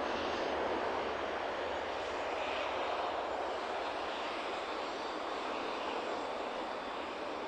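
Antonov An-12's four turboprop engines, a steady rushing drone that slowly eases in level.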